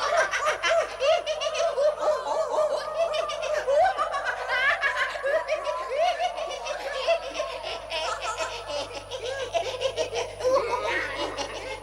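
A troop of monkeys chattering and squealing together, many short high calls overlapping in a steady, excited din.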